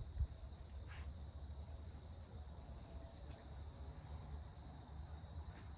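Insects buzzing in a steady, high, even chorus, over a low uneven rumble that drops away near the end.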